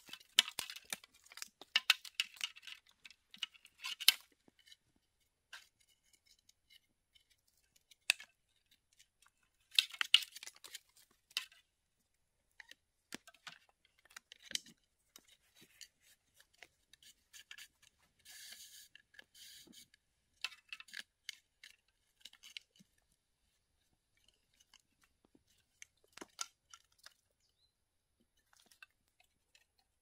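Bamboo stake, strip and cord being handled and tied close to the microphone: irregular clicks, scrapes and crackles, densest in the first few seconds and again around ten seconds in, with a short rasping rustle a little after halfway.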